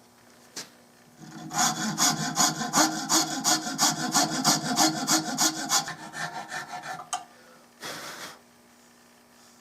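A hand tool cutting into a walnut gun stock with rapid, even back-and-forth strokes, about four a second, for roughly six seconds. There is a sharp click just before the strokes, another as they stop, and one short scrape after.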